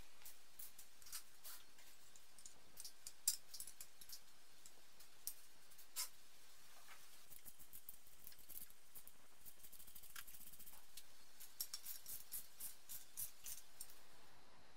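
Light clicks and taps of metal engine parts, bolts and hand tools being handled as the timing covers are fitted to a BMW M20B25 straight-six. A few single sharp clicks come early on, and a quick run of clicks comes near the end.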